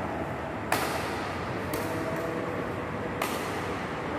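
Badminton rally: sharp cracks of rackets striking a shuttlecock, about three hits roughly a second to a second and a half apart, the first the loudest, over a steady hiss of the hall.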